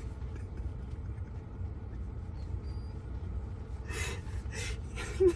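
Steady low rumble underneath, with a few breathy gasps of stifled laughter about four seconds in and a short voiced catch just before the end.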